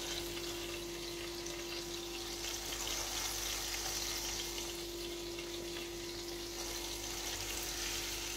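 Tomato halves frying in oil in a steel pan, a steady sizzle, with a steady low hum underneath.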